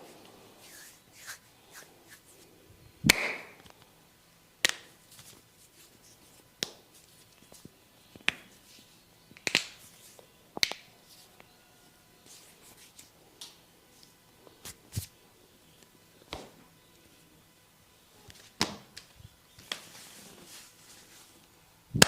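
Sharp slaps and cracks from a barber's hands working a head massage: about ten separate hits spaced one to two seconds apart, the loudest about three seconds in and another at the very end.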